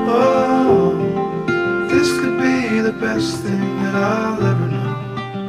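Background music: a song led by acoustic guitar, with two brief hissing swells about two and three seconds in.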